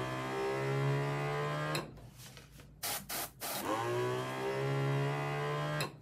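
Small airbrush compressor's motor running with a steady hum, winding down with a falling pitch about two seconds in. A few short hisses of air follow, then the motor spins back up with a rising pitch and runs until it cuts off abruptly near the end.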